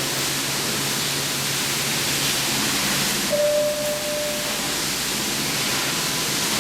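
Floodwater pouring and splashing steadily into an elevator as a constant rushing hiss. Roughly halfway through, a single steady beep of about a second sounds over it.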